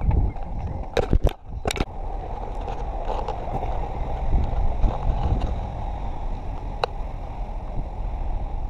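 Wind noise and jostling rumble on the microphone of a camera carried by a runner, with a few sharp knocks between one and two seconds in.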